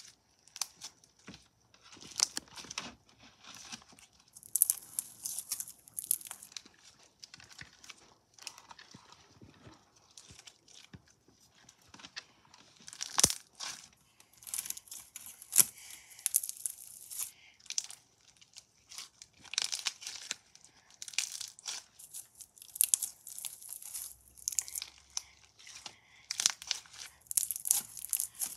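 Clear frog slime with small black beads being squeezed, stretched and pressed by hand, making sticky crackling in irregular bursts, with one sharp click about halfway through.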